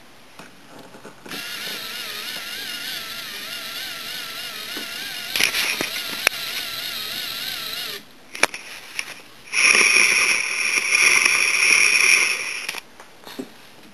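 LEGO Power Functions electric motors whining through plastic Technic gears: a steady whine with a wavering pitch for about seven seconds as the forks are winched up, with a few clicks partway through. After a short pause with light ticking comes a louder, higher whine for about three seconds as the forklift drives.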